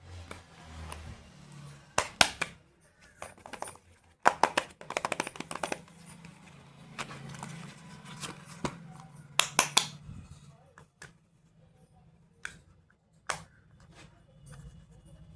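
Clicks and taps of plastic makeup cases and packaging being handled, with a quick rattling run of clicks about four seconds in and a few sharper single clicks later.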